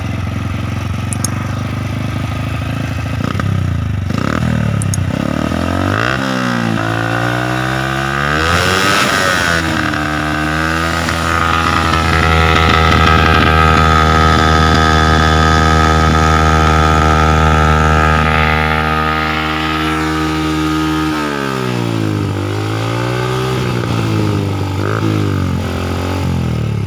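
Honda Astrea Grand motorcycle with a Legenda 2 single-cylinder four-stroke engine, breathing through a stock Honda Tiger Revo muffler with its baffles hollowed out. It is revved up from idle in several pushes, held at high revs for about ten seconds, then drops back to idle, with a couple more blips near the end.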